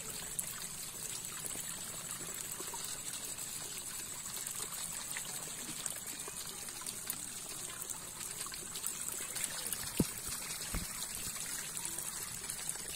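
Steady wet trickling and crackling at a split-bamboo fish trap heaped with small live fish, with many fine clicks throughout and one sharper tap about ten seconds in.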